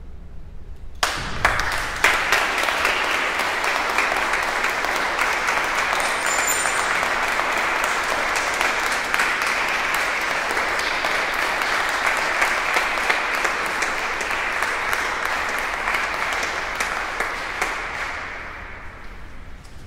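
Audience applauding, starting suddenly about a second in, holding steady, and fading away near the end.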